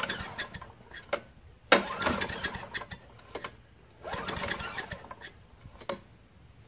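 Recoil starter on a Craftsman chipper-vac's 5 hp engine pulled three times, about two seconds apart, the engine turning over briefly with each pull but not catching. It will not fire; the owner finds no spark.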